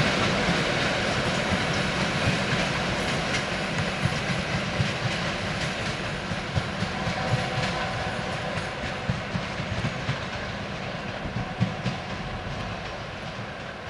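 Passenger coaches of a diesel-hauled fast train rolling away, their wheels clacking over the rail joints, the sound fading steadily as the train recedes.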